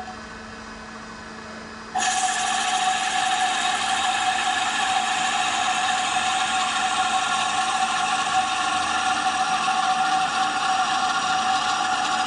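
CNC lathe running a dry-run cycle on a casting: a steady machine whine with a strong held tone comes on suddenly about two seconds in and holds level, over a faint constant low hum.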